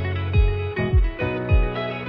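Background music: plucked string notes over a steady, regular beat.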